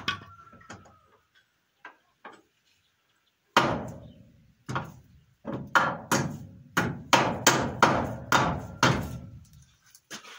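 Hammer striking nails into wooden planks: a few light taps, then after a short pause a run of about a dozen heavy blows, roughly two a second.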